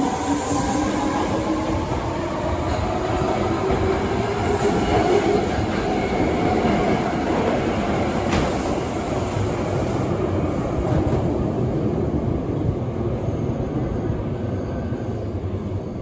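Osaka Metro 22 series subway train pulling out of the station. The traction motors whine, rising in pitch over the first few seconds, over a steady rumble and clatter of wheels on rail as the cars go by. The sound grows a little fainter near the end.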